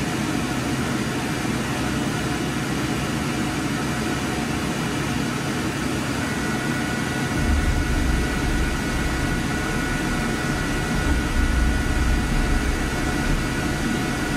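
Steady hum of machinery in an IMAX 70mm film projection booth. About six seconds in a thin steady whine joins it, and a moment later a deeper low rumble starts and continues.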